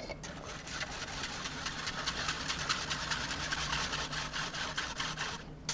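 Wire whisk scraping round inside a fine-mesh metal sieve, pushing puréed soup through the mesh to strain it. A fast, even run of scratchy strokes that stops just before the end.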